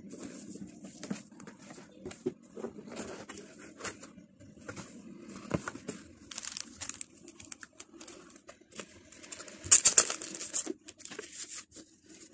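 Unboxing handling noise: plastic wrapping crinkling and a cardboard box and its contents being lifted, slid and set down, in irregular rustles, taps and scrapes. The loudest crinkling comes about ten seconds in.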